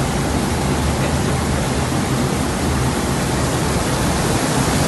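Cooling tower running: a loud, steady rush of water falling through the tower, with a low hum from its fan and pump.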